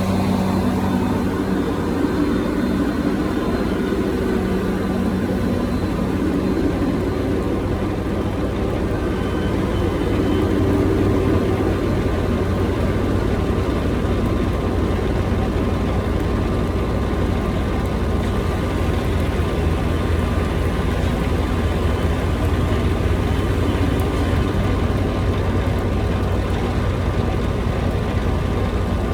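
Skid steer loader's engine running steadily with a low, even hum.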